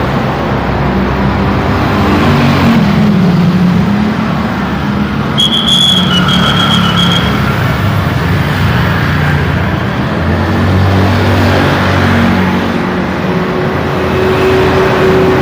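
Heavy road traffic: the engines of buses, trucks, cars and motorcycles running and passing close by. A high-pitched squeal cuts in about five seconds in and lasts about two seconds.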